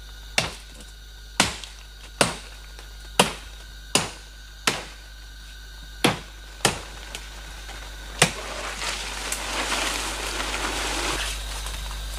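About nine sharp chopping strokes into a sapling's wood, irregularly about one a second. After the last stroke come a few seconds of rustling leaves and undergrowth.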